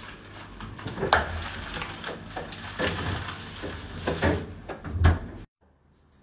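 Refrigerator door being opened and handled, with a run of knocks and thumps, the loudest about a second in and again near five seconds. The sound cuts off abruptly about five and a half seconds in, leaving faint room tone.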